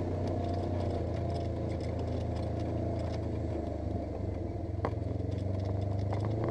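Polaris RZR 900 S side-by-side's twin-cylinder engine running steadily, with scattered clattering and rattling and a sharper knock about five seconds in.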